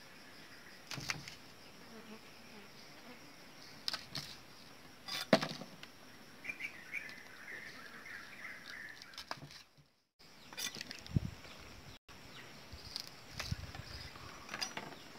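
A kitchen knife knocking on a round wooden chopping block as small chillies are sliced: a handful of separate knocks, the loudest about five seconds in. Insects call steadily in the background, and a bird chirps in the middle.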